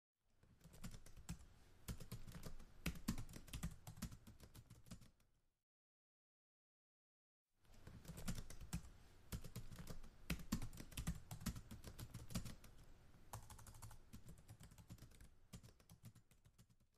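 Typing on a laptop keyboard: rapid, uneven key clicks in two stretches, broken by about two seconds of dead silence.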